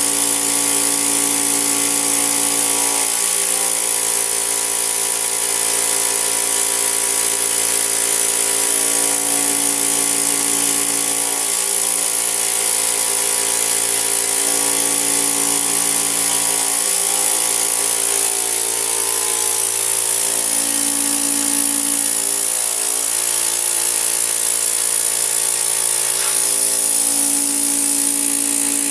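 Vacuum cleaner motor running steadily with a high whine. Its pitch shifts slightly a few times as the nozzle is moved between a bucket of water and the fabric upholstery.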